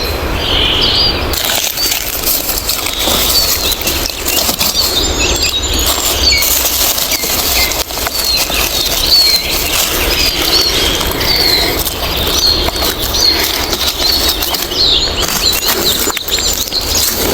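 Rustling and crunching of leaf litter and undergrowth in irregular bursts, as someone moves through forest and handles the ground cover. Small birds chirp repeatedly in the background.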